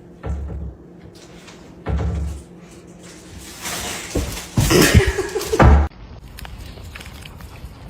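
Two dull thumps, then a louder stretch of knocking and clattering about four to six seconds in that stops suddenly.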